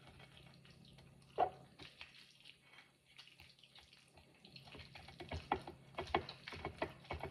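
Tuna being stirred with mayonnaise in a bowl: faint wet squelching and scraping strokes, with a quick run of strokes, about four a second, in the second half.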